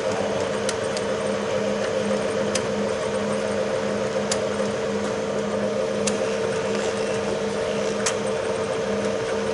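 Bridgeport variable-speed J-head vertical milling machine running under power, a steady whirring hum with a lower tone that pulses, sounding really good. A few light clicks come through now and then.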